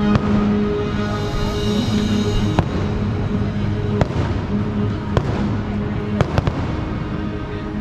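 Fireworks shells bursting overhead, several sharp bangs a second or so apart, with music playing underneath.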